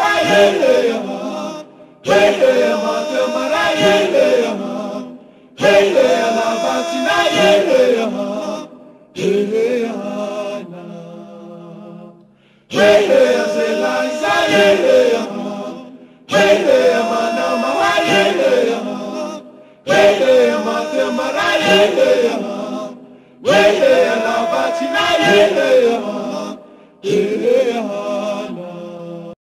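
Choir chanting the same short sung phrase over and over, about one phrase every three and a half seconds. Each phrase starts together and fades out, and one around ten seconds in trails off longer before the next begins.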